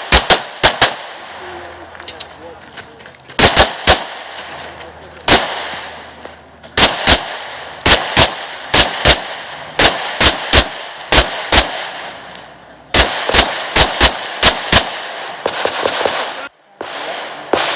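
Pistol shots fired in rapid strings, mostly quick pairs, on a practical-shooting stage, with short pauses between groups as the shooter moves between targets; the shots stop about 15 seconds in.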